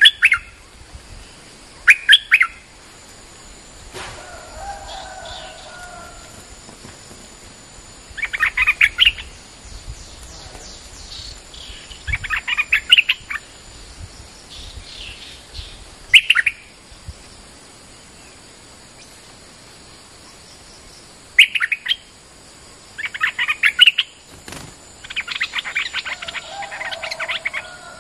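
Stripe-throated bulbul singing short, loud phrases every few seconds, growing into longer, denser song near the end: a caged decoy bird calling to draw in wild bulbuls. A lower chattering call comes in around four seconds in and again near the end.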